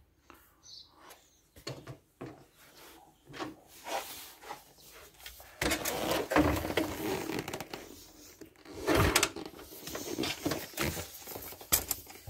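Irregular clicking, knocking and scraping of hand tools and metal parts on an Alpha 110 moped engine as the engine is turned over to bring the piston to top dead centre. It is sparse at first and busier from about halfway, with the loudest burst about nine seconds in.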